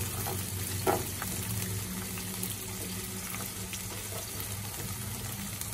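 Sliced onion, ginger, garlic and dried chillies sizzling steadily in hot oil in a nonstick pan while being stirred with a spatula, with a brief knock about a second in and a low hum underneath.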